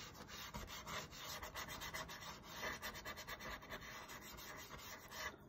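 Paintbrush scrubbing paint across a painted board in a quick run of faint rubbing strokes, blending a colour into shading.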